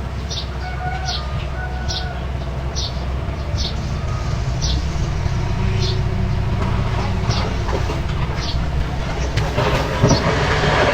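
Mini bulldozer's engine running steadily, with a short high squeak repeating roughly once a second. A louder rush of scraping noise comes near the end.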